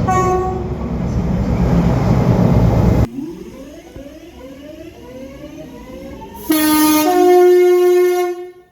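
A train's deep, loud rumble with a brief horn note at the start cuts off suddenly, followed by a rising whine as a train pulls away. Near the end a two-tone train horn sounds, a short lower note and then a higher note held for about a second and a half.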